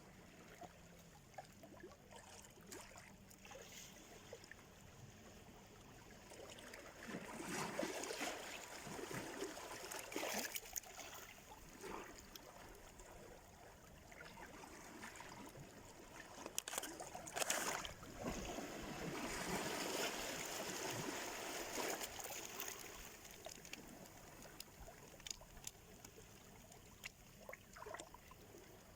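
Small sea waves breaking and washing on the shore, with a crackle of splashes. Two louder surges build and fade, about a quarter and about two-thirds of the way through.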